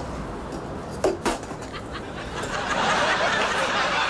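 Studio audience laughter swelling from about two and a half seconds in, over a low background hum.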